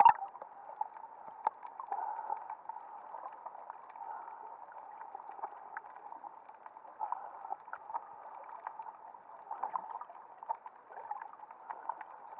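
Muffled underwater noise heard through a waterproof action-camera housing: a steady band of water hiss with scattered small clicks and crackles. A louder burst comes right at the start.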